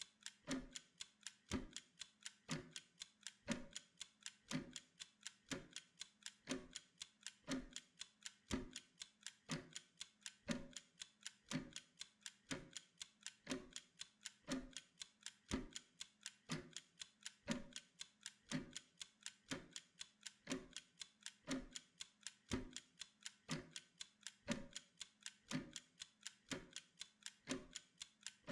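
Mechanical wind-up kitchen timer ticking steadily and fast, with a heavier tick about once a second and lighter ticks between.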